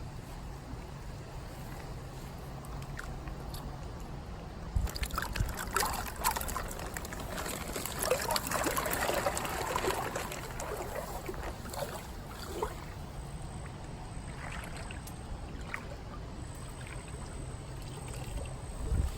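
Water splashing and trickling in irregular bursts, busiest and loudest from about five to twelve seconds in, over a steady low hum.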